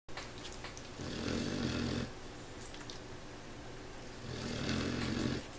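A sleeping puppy snoring: two snores about three seconds apart, each lasting about a second.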